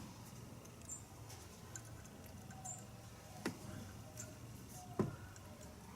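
Faint metal clicks and scrapes of an Allen key being fitted into set screws on a metal collar, with two sharper clicks, one past the middle and one near the end.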